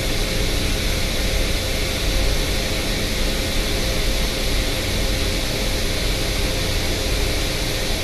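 GMC Acadia's 3.6-litre V6 idling with a steady rumble. The engine has a fuel-trim fault and a cylinder 1 misfire.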